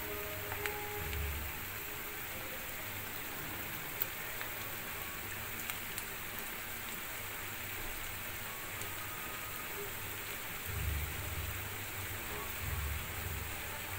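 Onions and dried red chillies sizzling in hot oil in an iron kadai, a steady frying hiss with a few faint crackles. A couple of low bumps come near the end.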